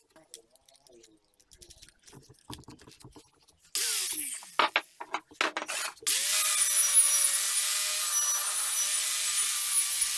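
Angle grinder with a twisted-wire cup brush running steadily, scouring rust off a steel wheel rim. It starts about six seconds in, after faint clicks and then a few loud clatters as the tool is handled.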